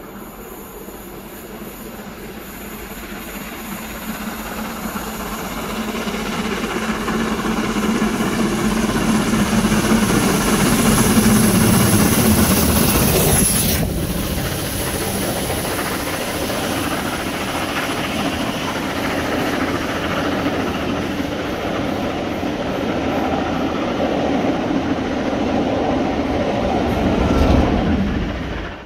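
LMS Jubilee class 4-6-0 45596 Bahamas, a three-cylinder steam locomotive, working hard under load as it climbs the bank and passes beneath. The sound grows to its loudest about eleven to thirteen seconds in, then the coaches roll past and draw away.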